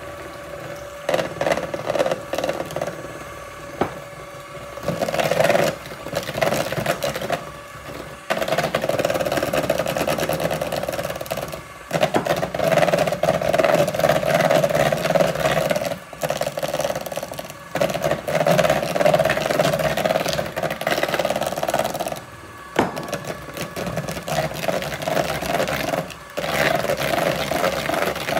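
Electric hand mixer running with its beaters in muffin batter, cutting out briefly and starting again several times while the flour mixture is gradually added.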